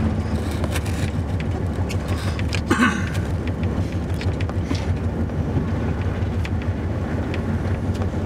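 Snowplow truck's engine and road noise heard from inside the cab: a steady low drone while driving, with small clicks and one brief higher-pitched sound about three seconds in.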